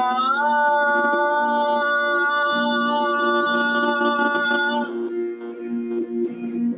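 Worship song: a singer holds one long note, sliding up slightly at the start, over acoustic guitar; the note ends about five seconds in and the guitar carries on.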